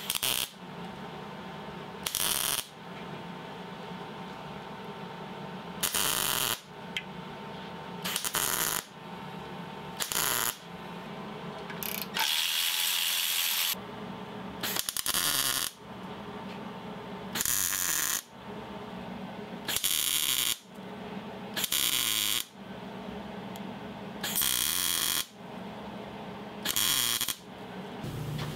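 MIG welder tack-welding a steel bracket onto a bent steel oil tube: about a dozen short bursts of crackling arc, each half a second to a second and a half long, coming roughly every two seconds, with one longer bead around the middle. A steady low hum runs between the bursts.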